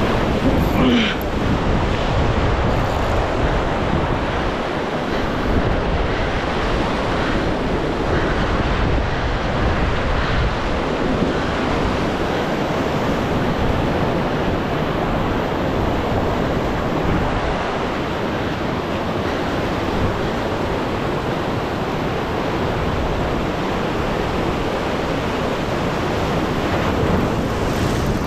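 Ocean surf breaking and washing over a rock ledge in a steady rush of white water, with wind buffeting the microphone.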